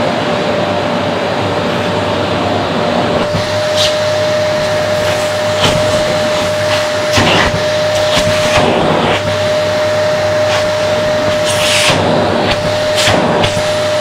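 Vacuum cleaner running steadily with a constant whine, its bare hose end sucking over a fabric pillow. The hiss of air briefly surges several times as the nozzle moves over and presses into the cloth.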